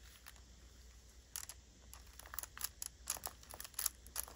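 Faint, scattered clicks and rustles of paper journal pages and a lace flower being handled, starting about a second in.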